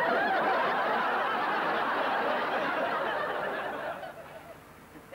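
Studio audience laughing, fading out about four seconds in.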